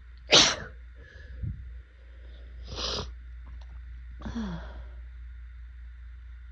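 A woman sneezing hard once, about a third of a second in, then a few quieter breathy sounds. These are allergy sneezes brought on by pollen.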